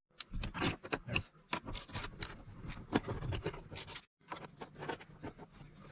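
Irregular small clicks, taps and scrapes of hand tools being handled, as Torx bits from a set are tried on a door-panel screw. The sound drops out completely for a moment about four seconds in.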